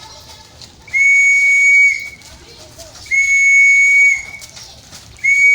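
A hand whistle blown in three long, steady, high blasts of about a second each, about two seconds apart, the last starting near the end: the leader's whistle signal for the group to disperse.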